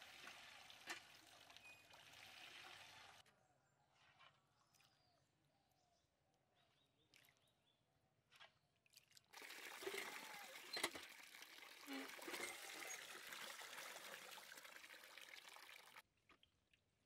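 Water pouring and splashing as lentils are rinsed in a steel pan under a hand pump, with a few sharp clinks. The flow stops about three seconds in, starts again louder about nine seconds in, and cuts off near the end.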